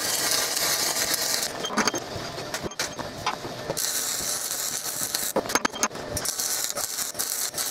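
Gas-shielded (dual shield) flux-cored wire welding arc crackling and hissing in three short runs: the first stops about a second and a half in, the second runs from about four to five seconds in, and the third starts again about a second later. Sharp clicks come in the pauses.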